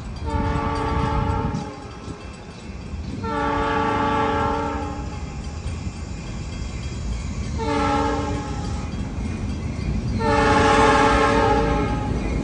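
New York & Atlantic Railway freight locomotive's air horn sounding the grade-crossing signal, long, long, short, long, as the train approaches, over the low rumble of the train.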